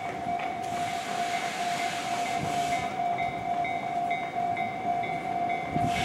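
Japanese railroad crossing warning alarm ringing at the barrier: a steady, repeating electronic bell tone. A rushing train noise rises underneath it about half a second in and again near the end.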